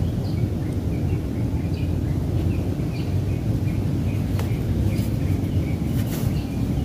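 Small birds chirping, short calls repeating over a steady low rumble.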